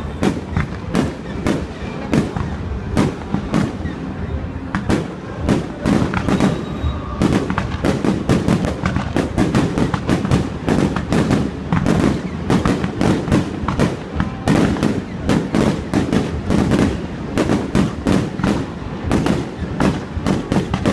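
Fireworks display: a rapid, unbroken barrage of shells bursting, several sharp bangs a second over a low rumble, growing denser about a third of the way in.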